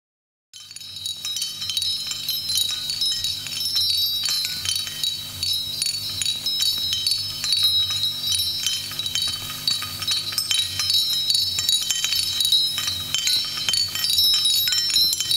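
Recorded tinkling chimes over a low steady drone, played through the DJ decks, starting suddenly about half a second in.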